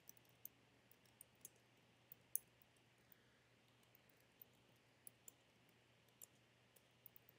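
Faint keystrokes of someone typing on a computer keyboard: irregular, scattered clicks, the loudest a little over two seconds in.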